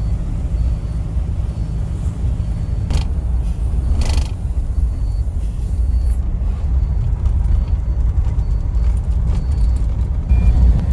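Steady low engine and road rumble heard inside a moving coach bus on a wet road, with two brief hisses about three and four seconds in.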